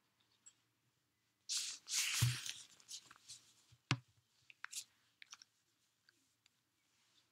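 Packaging crinkling and tearing for about a second and a half, then one sharp click followed by a few lighter clicks.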